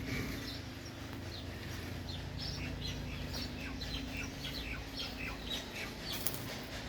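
Birds chirping, several short high calls a second, over a steady low hum, with a sharp click near the end.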